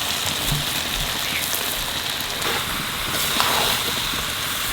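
Country chicken frying in spiced oil in a pan, a steady sizzling hiss with a few faint ticks, while the meat is being dry-fried (kosha) in its masala.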